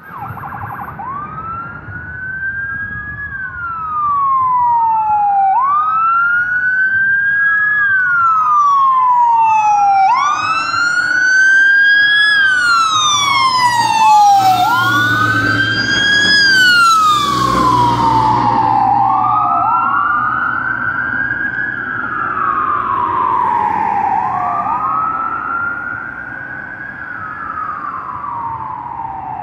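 Fire truck sirens wailing, each cycle rising quickly and falling more slowly, about every four to five seconds. It is loudest in the middle as the fire engine passes, with its engine rumble underneath. In the second half a second siren, from the following rescue truck, wails slightly out of step with the first.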